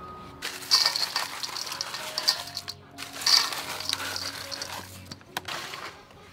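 Crushed ice poured onto cut guava in a stainless steel bowl, a crackling clatter of ice pieces on fruit and metal in two pours of about two seconds each, with a sharp click near the end. Soft background music underneath.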